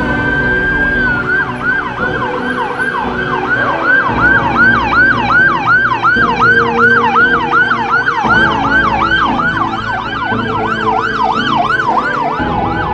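Ambulance siren: a rising wail held for about a second, then switching to a fast yelp of about three up-and-down sweeps a second. Vehicle engines run underneath.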